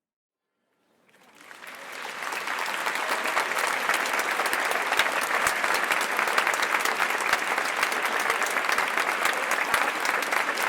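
Large crowd applauding. After about a second of silence the clapping fades in and swells over a second or so, then runs on as dense, steady clapping from many hands.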